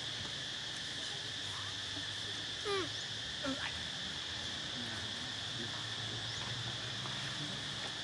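A steady insect chorus with a constant high buzz in forest. About three seconds in, a brief squeaky animal call cuts through, followed half a second later by two shorter ones.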